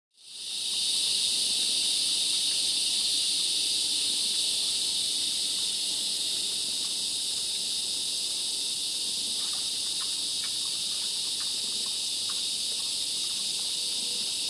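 Steady, dense, high-pitched chorus of insects buzzing at dusk, fading in over the first second. A few faint ticks sound in the second half.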